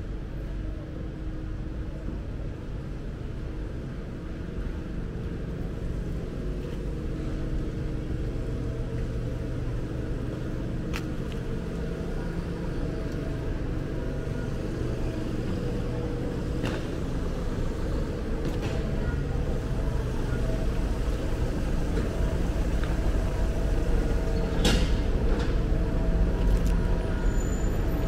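Street traffic: a motor vehicle's engine running steadily, growing gradually louder, with a few sharp clacks, the loudest about three-quarters of the way through.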